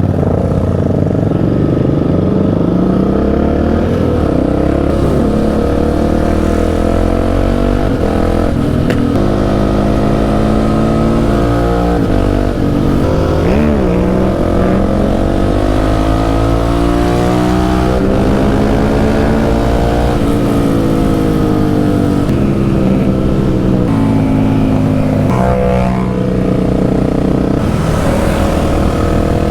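Motorcycle engine under way, pulling up through the revs and dropping in pitch at each gear change, several times over.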